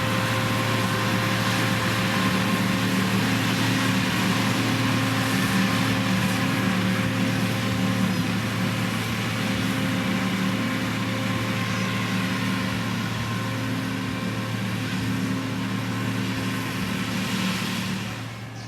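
Diesel engine of heavy road-construction machinery (motor grader or road roller) running steadily at work, with a constant low hum and a wide hiss over it. The sound drops sharply shortly before the end.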